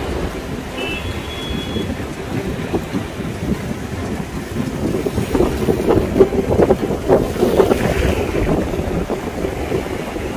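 Rushing water of a river in flood after heavy rain, with wind buffeting the microphone in gusts that grow stronger midway.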